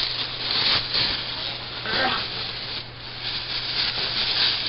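Plastic bags rustling and scraping against a cardboard box as packed pieces are handled and lifted out, in irregular crinkling swells.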